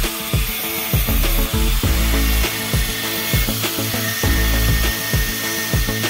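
Background music with a steady beat over an angle grinder's thin cut-off disc cutting through a steel rod, a high whining hiss.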